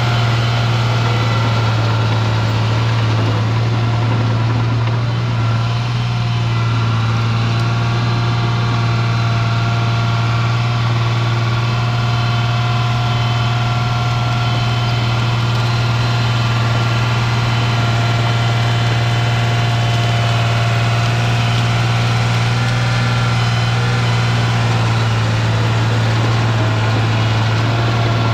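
Cat D3C LGP crawler dozer's diesel engine running steadily while the dozer pushes brush and a small uprooted tree, a continuous low drone with a faint steady whine above it.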